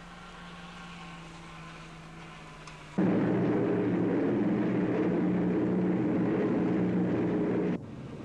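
A loud engine running at a steady level, starting abruptly about three seconds in and cutting off abruptly near the end, after a few seconds of a quieter steady hum.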